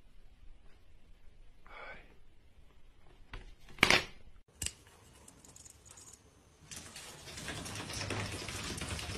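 Plastic basket with a slatted lid handled with faint knocks, then snapped down with one sharp click about four seconds in. Near the end comes a stretch of steady rustling noise.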